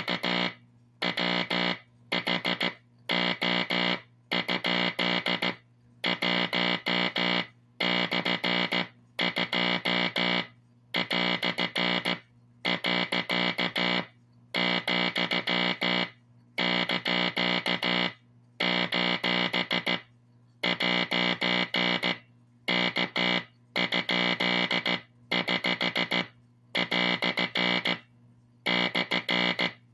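Vintage Teleplex tube code practice oscillator sounding Morse code through its speaker: a buzzy, steady-pitched tone keyed on and off in long and short runs separated by brief gaps, with a steady low hum underneath that carries on between the tones.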